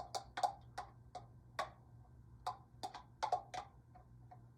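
Light, irregular clicks and taps of a kitchen utensil against a dish, about a dozen over a few seconds, as shredded cooked chicken is added to the soup.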